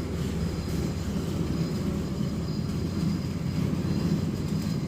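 Steady low rumble of an engine running without pause.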